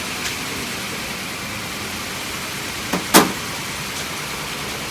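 A steady hiss, with two sharp metallic clinks close together about three seconds in, the second louder: steel collets or tool holders knocking together as they are handled and sorted.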